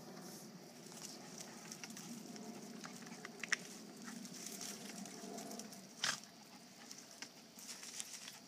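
A small dog rustling and pawing through dry fallen leaves while hunting a chipmunk, with a few sharp clicks, the loudest about three and a half and six seconds in.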